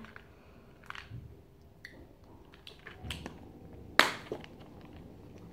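Small plastic candy tub with a blue lid being handled: faint taps and ticks, then a sharp plastic click about four seconds in, followed by a smaller one.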